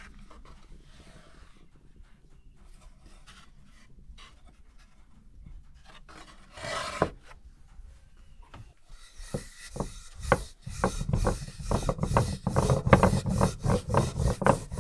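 Rubbing and scraping strokes on wood: sparse and faint at first, with one louder stroke about seven seconds in, then a quick, louder run of about four strokes a second from about nine seconds on.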